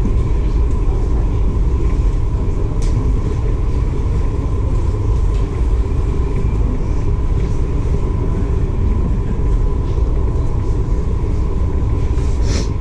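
Steady low rumble aboard the Staten Island Ferry while it is underway, with a faint steady hum and a brief hiss near the end.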